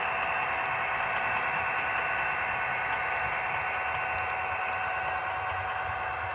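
HO scale model freight train with Burlington Northern diesel locomotives running slowly past: a steady mechanical hum and hiss, with a low rumble growing stronger about halfway through.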